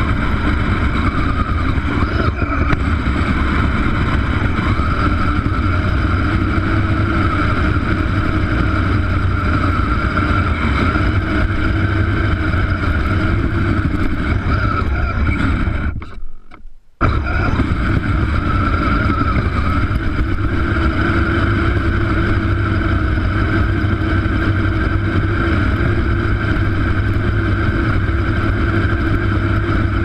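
Engine of a small snow-plowing machine running steadily under load as it pushes through deep snow. The sound cuts out for about a second about halfway through, then carries on the same.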